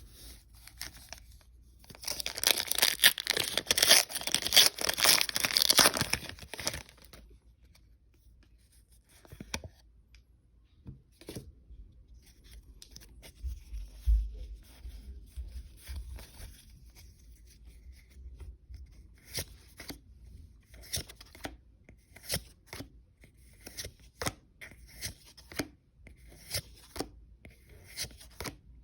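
A Pokémon booster pack's foil wrapper being torn open, a loud crinkly tearing lasting about four seconds, starting about two seconds in. After that, scattered short soft clicks and rustles as the cards are handled.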